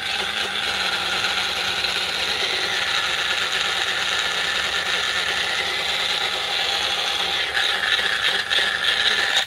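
Magic Bullet blender's motor running steadily at full speed, chopping pesto in its upside-down cup: a loud, even whir that cuts off abruptly at the end.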